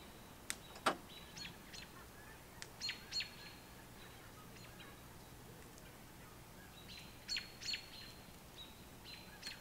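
Faint bird calls: short, high chirps, several coming in pairs, over a quiet outdoor background. A single sharp click is heard about a second in.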